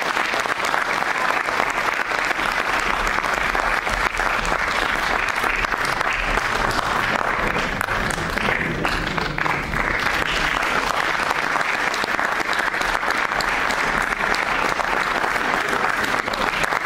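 A theatre audience applauding steadily, many hands clapping at once.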